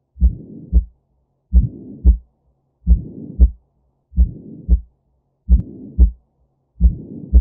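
Slow heartbeat, six paired lub-dub thumps about every 1.3 seconds, with a soft whooshing between the two beats of each pair.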